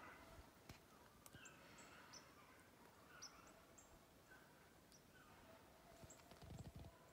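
Near silence: faint outdoor ambience with a few short, high bird chirps, and soft rustling about six seconds in.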